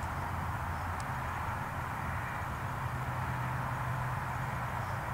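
Steady outdoor background noise: an even hiss with a low, constant hum underneath and no distinct event.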